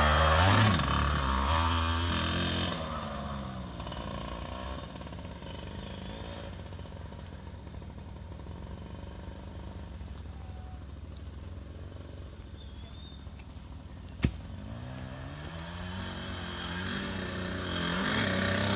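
Small two-stroke dirt bike riding close past, its engine fading as it moves away, running faintly in the distance, then growing louder again as the bike comes back near the end. A single sharp click about two-thirds of the way through.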